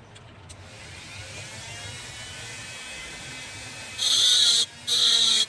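A small electric motor whirring and rising in pitch, then loud bursts of hiss that switch on and off, the first about four seconds in.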